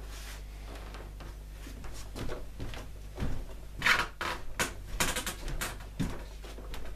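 Short knocks, clicks and scrapes of a plastic Qualcast electric mower deck being handled and shifted, with a cluster of knocks about four seconds in and more just after five seconds.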